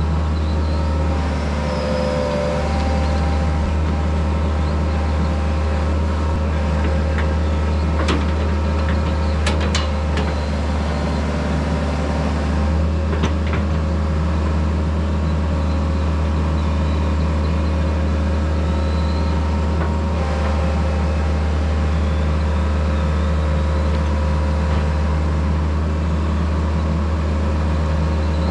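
Heavy construction machine engine running steadily with a deep, even hum, and a few short clicks or knocks partway through.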